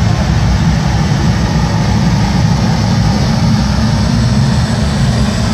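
Loud, steady low rumble of jet-engine sound effects played over the model airport's loudspeakers, unchanging throughout.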